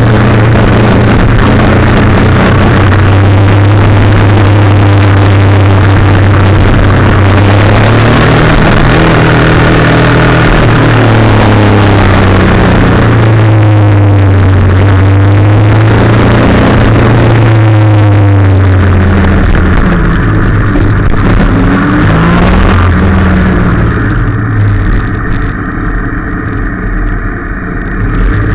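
ATV engine running hard at speed with wind rushing over the microphone; the engine note rises and falls several times through the middle, then eases off and quietens near the end as the ride slows.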